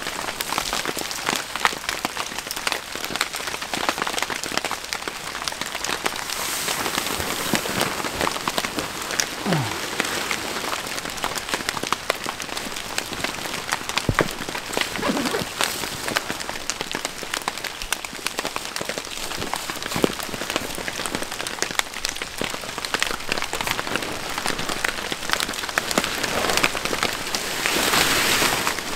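Heavy rain falling steadily, with a dense spatter of individual drops striking close by; it grows a little louder near the end.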